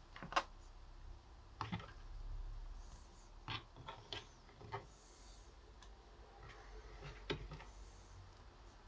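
Faint, scattered taps and clicks of bolete pieces being handled on a wooden cutting board and dropped into a water-filled blender jar, with the sharpest knock about half a second in.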